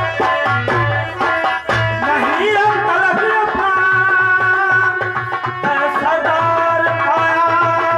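Live folk-theatre band music: hand drums beat a quick, steady rhythm, and about two seconds in a sustained melody with bending notes comes in over them.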